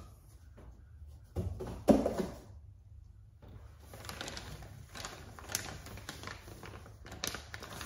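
Cardboard shipping box knocked and set down with two thumps, the second the loudest. Then plastic packaging crinkles and rustles, with sharp little ticks, as a mesh grille is handled in its bag.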